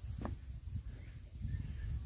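Quiet outdoor ambience: a low rumble on the microphone with a faint chirp or two near the end.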